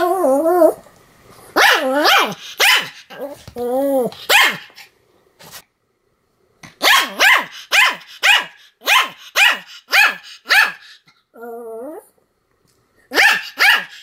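Pomeranian barking over and over in short, sharp barks, about two a second in its longest run. A few longer, wavering calls come between the runs, and there is a pause of a second or two before the main run.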